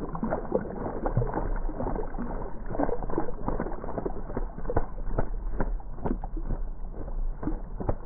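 Brown thrasher splashing and flapping in a shallow birdbath: a dense, irregular run of water splashes and flicks. It sounds dull and muffled, as audio slowed down with the slow-motion picture does.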